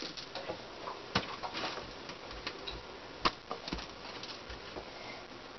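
Fresh broccoli florets being snapped apart by hand and set down on a metal baking pan: faint crackling and rustling with two sharp clicks, about a second in and about three seconds in.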